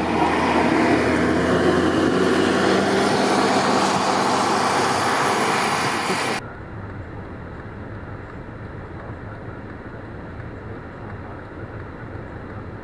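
Loud vehicle noise, a wide rushing sound with a few steady engine tones. About six seconds in it cuts off abruptly to a much quieter, steady low rumble.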